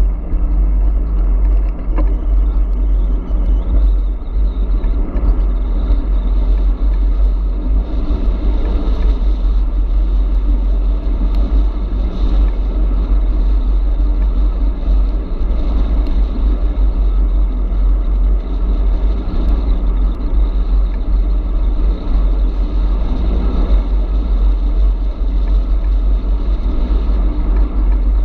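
Wind buffeting the camera's microphone as the e-bike rides along at speed: a steady, loud low rumble.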